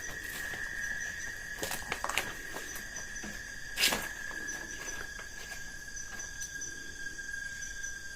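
Insects trilling steadily on one high pitch, with fainter rapid chirps above it. A few scattered knocks and clicks come and go, the loudest about four seconds in.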